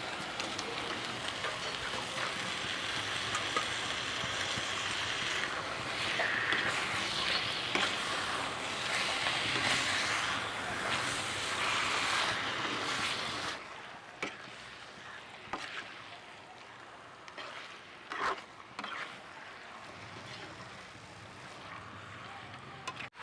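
Masala paste frying and sizzling in hot oil in a pan, with clicks of stirring. About halfway through the sizzle drops to a much quieter hiss, broken by a few short knocks.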